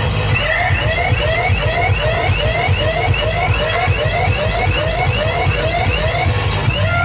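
DJ sound system playing a siren effect: a rapid rising whoop repeated about three times a second, over heavy bass.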